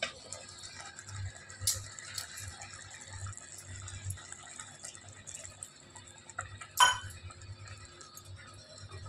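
Water poured from a steel tumbler into an aluminium pot of brinjal curry, with light clinks of the tumbler and a wooden spoon against the pot. A single sharp metallic clink about seven seconds in is the loudest sound.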